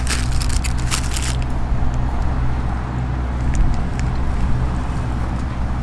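Paper napkin crinkling in the hands, a quick run of crackles over the first second and a half, over a steady low rumble of car-park traffic.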